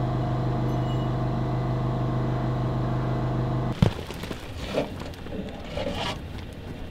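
A steady, even machine hum that cuts off suddenly about four seconds in, followed by faint, irregular background sounds.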